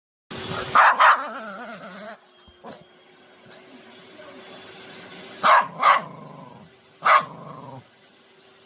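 Poodle barking angrily at a vacuum cleaner: a pair of sharp barks about a second in, another pair past the middle and a single bark near the end, each trailing off into a low growl.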